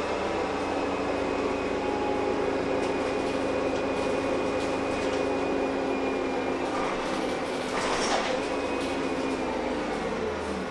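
Interior of a Heuliez GX317 LPG-fuelled city bus under way: a steady engine drone with a thin high whine above it, and a brief burst of noise about eight seconds in.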